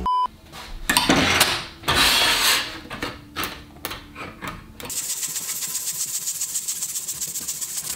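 A short test-tone beep at the start, then irregular scraping as 3D-printed plastic tree pieces are handled and rubbed, settling about five seconds in into steady, rapid sanding of a printed part.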